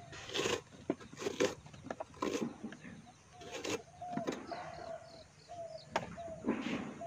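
Green bananas being cut and snapped off a bunch with a hand blade: a run of short, sharp cuts and snaps, thickest in the first couple of seconds. A bird calls repeatedly with short chirps through the second half.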